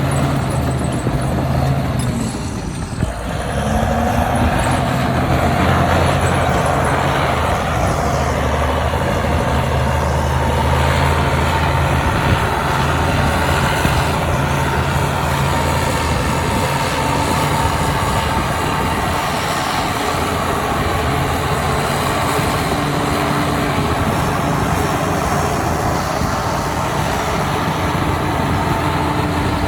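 Heavy diesel engine of earthmoving machinery running under load, steady throughout, with a brief drop in level about two to three seconds in before the engine picks up again with a rising pitch.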